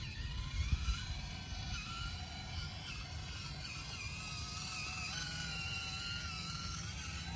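Small electric RC crawler truck's motor and geartrain whining, the pitch rising and falling as the throttle changes.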